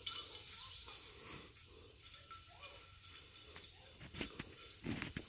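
Quiet woodland ambience with a few faint high bird calls, then a couple of brief rustling crunches in dry leaf litter near the end.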